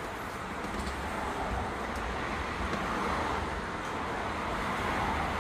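Steady background road-traffic noise, an even rush with a low rumble.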